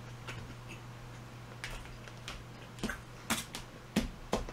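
A faint run of about six short, sharp clicks and taps at uneven intervals, from about one and a half seconds in, over a steady low electrical hum.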